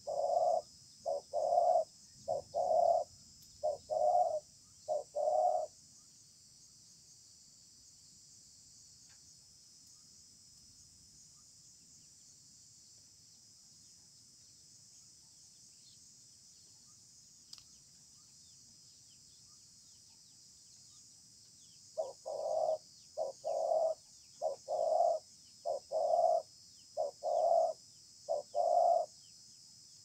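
Spotted doves cooing: a run of about seven short coos right at the start, then quiet, then another run of about eight coos in the last third. Insects trill steadily in the background.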